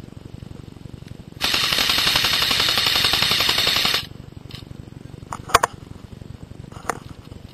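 Airsoft electric rifle firing one long full-auto burst of about two and a half seconds, a very rapid string of shots starting about a second and a half in. Two short sharp cracks follow a little later.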